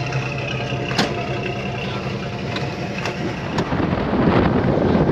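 A car's engine and road noise heard from inside the cabin while driving, a steady low hum under rumbling tyre noise, with a couple of sharp knocks and the noise growing louder near the end.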